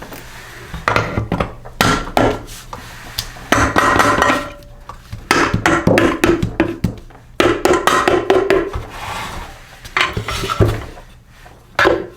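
Metal hand tools clinking, knocking and scraping on a small engine's crankcase in several short spells, as the cover bolts are worked loose and the case is tapped apart.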